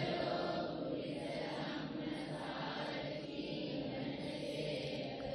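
A congregation chanting in unison, faint and blurred: many voices answering between the monk's recited lines of Buddhist verse.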